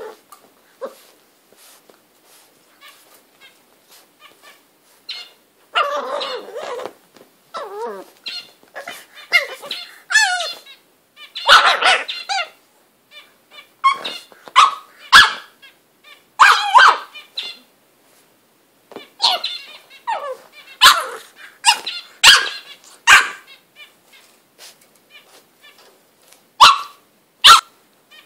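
English bulldog puppy barking and growling in short, irregular bursts while biting and wrestling with its dog bed.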